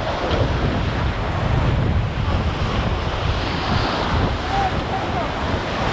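Water rushing and spraying along the hull of a JPK 1080 racing sailboat sailing fast under spinnaker, with heavy wind buffeting the microphone.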